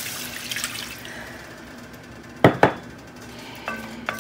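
Chicken broth pouring from a glass measuring cup into an enameled cast-iron Dutch oven, followed by two sharp knocks a little past the middle. Near the end a wooden spoon stirs and scrapes in the pot, with a few clicks that ring briefly.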